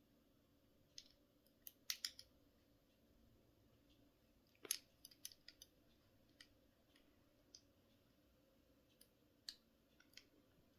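Lock pick working in the keyhole of TCH 840 handcuffs to release the double lock: faint, irregular small metallic clicks and ticks, one a little louder about four and a half seconds in.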